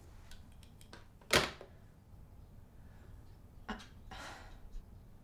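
A sharp thump about a second and a half in, then a softer knock and a short rustle just before four seconds, in a small room.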